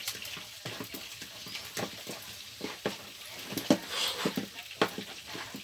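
Fluffy slime mix of white glue, shaving foam and glycerin being stirred in a bowl: irregular sticky squelches and clicks from the foamy mass.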